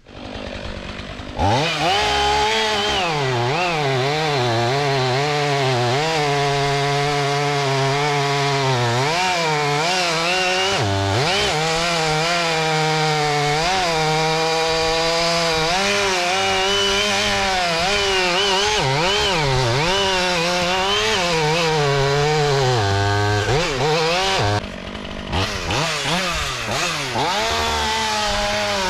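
Stihl MS 500i chainsaw with a 32-inch bar running at high revs while cutting into a dead oak trunk, its engine pitch wavering as the chain bogs and recovers under load. This is most likely the felling back cut made after the notch. About three seconds before the end the saw eases off briefly, then cuts again.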